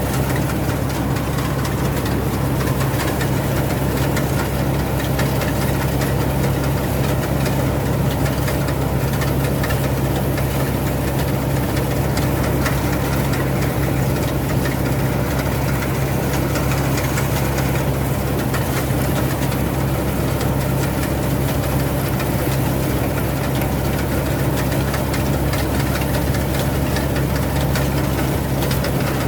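Rice combine harvester's engine running steadily at an even pitch, a constant drone that neither rises nor falls.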